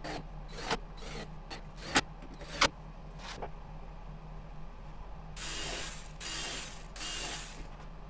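Knocks and clicks of pine table parts being handled during assembly, two of them sharp and loud, followed a few seconds later by three short harsh scraping sounds, over a steady low workshop hum.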